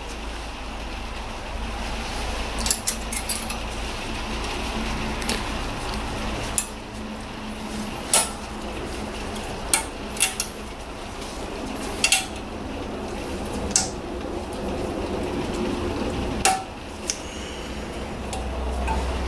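Sharp metallic clicks and clinks, about a dozen spaced irregularly, as new brake pad retaining clips are pushed into a front brake caliper carrier. A steady low hum runs underneath.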